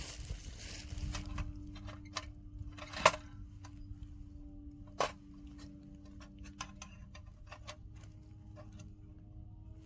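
Two sharp knocks, about three seconds in and again two seconds later, among scattered light clicks and taps over a faint steady hum.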